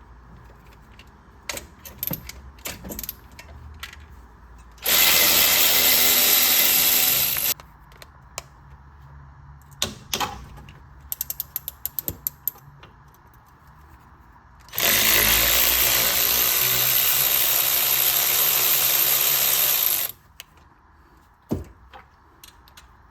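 A handheld power tool runs twice, first for about two and a half seconds and then for about five, while the brake hardware is worked on. Between the runs come scattered metal clicks and a quick run of ratchet clicks.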